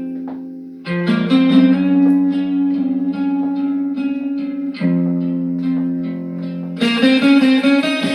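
Instrumental music led by guitar, with plucked notes over a steady beat; the arrangement thins briefly about a second in and fills out with a brighter, fuller sound near the end.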